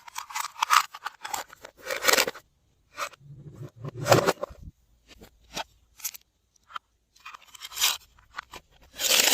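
Glossy slime being worked by hand and mixed, giving irregular crunching, crackling and sticky clicking sounds in short bursts, the loudest near the end.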